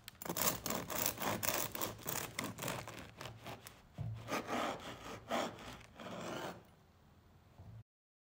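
Serrated bread knife sawing back and forth through the crunchy crust of a home-baked loaf on a wooden cutting board, a rasping crackle with each stroke, in two bouts. It stops near the end.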